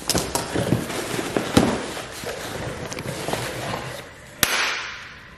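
Cardboard shipping box and its packing being torn open and handled: dense crackling with a few sharp snaps, the loudest near the end.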